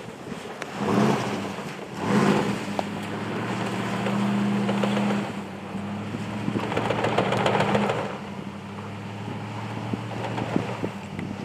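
Nissan Titan pickup's engine running while driving off-road in snow, its note rising and falling with the throttle and changing pitch a few times, with patches of rushing noise.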